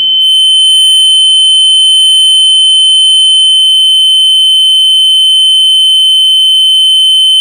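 The siren buzzer on a PLC training set's load panel sounds one continuous, loud, high-pitched tone, switched on by a PLC output. It is hard to bear.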